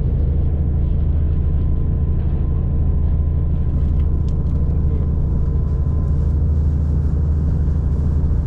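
Moving passenger train heard from inside an air-conditioned carriage: a steady, loud running rumble with a faint steady whine above it.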